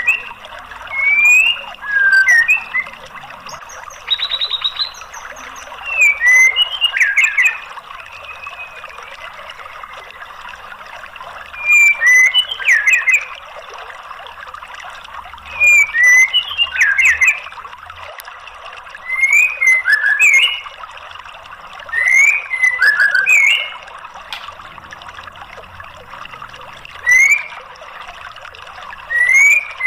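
White-rumped shama (murai batu) singing short bursts of quick, sweeping whistled notes every few seconds, over a steady hiss of trickling water.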